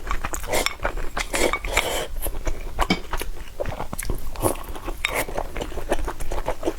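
Close-miked eating: wet chewing and crunching bites, with utensils clicking and clinking against a dish in many short, irregular taps.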